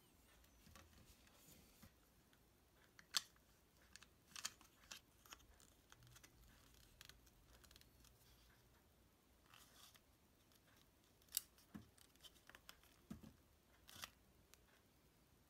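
Faint, scattered clicks and clacks of a Vonjean Trekker M tripod's plastic phone-holder clamp and head being handled and adjusted, with the sharpest click about three seconds in and another past eleven seconds.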